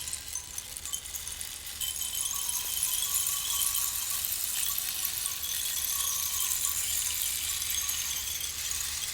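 Handmade eucalyptus-wood rainstick being tipped, its fill trickling down inside in a dense, fine, high patter like rain. The patter swells about two seconds in and then runs on evenly.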